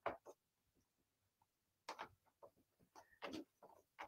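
A yellow crayon scratching faintly across sketchbook paper in short, irregular strokes with brief pauses.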